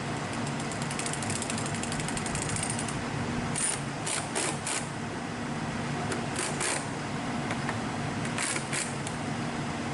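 Mechanical ratcheting: fast clicking for the first few seconds, then groups of short sharp bursts, over a steady low engine hum.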